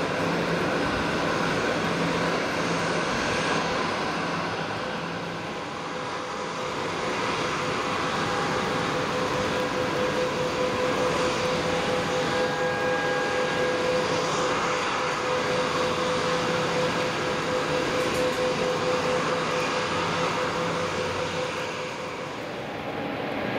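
Bombardier Global Express business jet's turbofan engines running at taxi idle: a steady rushing noise with a constant whine, easing slightly twice.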